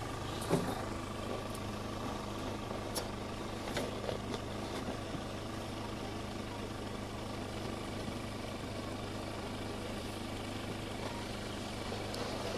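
A steady mechanical hum like an idling engine, with a few small clicks in the first few seconds.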